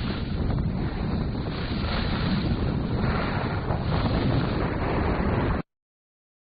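Rough rushing outdoor noise, heaviest in a low rumble, of the kind wind on the microphone or surf makes; it cuts off suddenly about five and a half seconds in.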